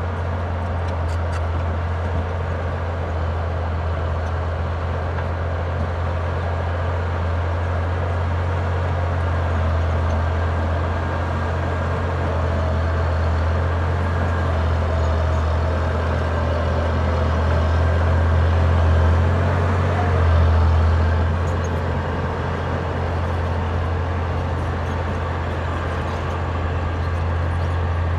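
Cat D6D crawler dozer's six-cylinder diesel working under load as it breaks out shale and clay, with a steady deep engine drone that swells briefly about two-thirds of the way through.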